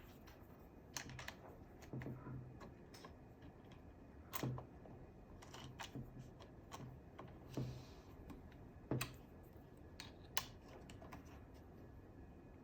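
Scattered light clicks and taps, one every second or so, from handling a quick-detach sling swivel and the airsoft rifle's parts.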